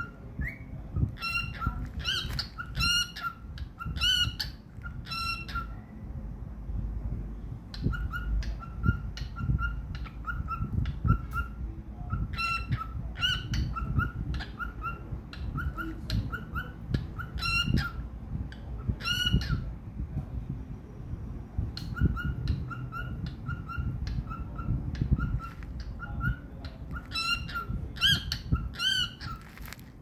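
Cockatiel singing: quick runs of short, repeated chirping whistles with sharper, louder squawk notes mixed in, in three long phrases broken by brief pauses.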